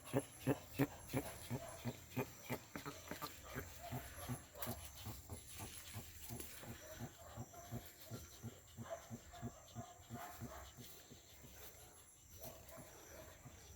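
Male jabuti tortoise giving a rhythmic series of short clucking calls, about two a second, while trying to mate; the calls grow fainter and more irregular in the second half.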